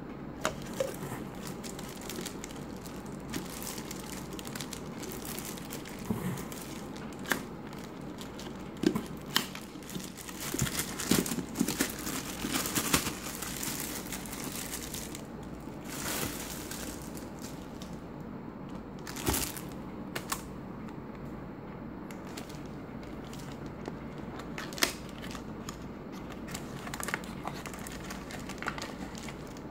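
Plastic packaging crinkling and rustling as items are handled inside a cardboard box, with scattered sharp clicks and taps of hard plastic, busiest around the middle.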